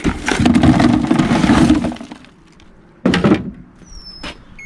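Chopped copper motor windings poured from a plastic bucket into a hollow plastic tub, a loud clattering rattle lasting about two seconds. About three seconds in there is a single sharp knock.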